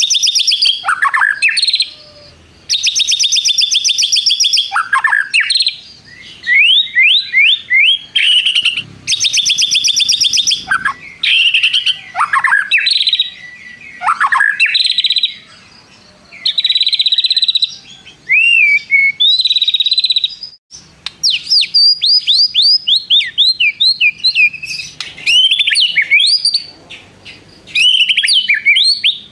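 White-rumped shama singing a loud, varied song: long, very fast trills alternate with whistles that sweep steeply down, and near the end it gives a quick run of sharp down-slurred notes. The long trills are its mimicry of a prenjak's (prinia's) 'tirrr' trill.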